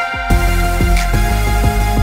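Background music with a steady drum beat and held tones. The beat drops out for a moment at the start and comes back in about a third of a second in.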